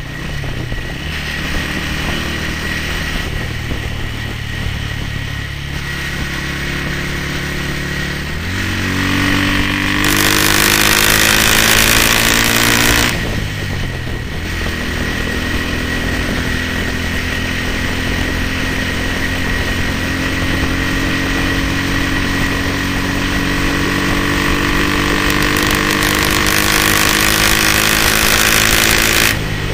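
1970 BSA Starfire 250's single-cylinder four-stroke engine pulling on the move, heard from onboard. The note climbs about nine seconds in, drops sharply around thirteen seconds, then rises slowly again before dropping near the end. Wind rush is loudest when the engine is highest.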